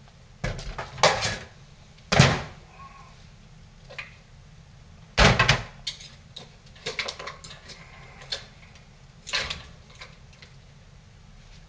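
Irregular knocks and clatter of a metal ladle in a cooking pot and of boiled spider crabs being lifted out and set down in a glass bowl, about eight separate strikes with the loudest about two seconds in and about five seconds in.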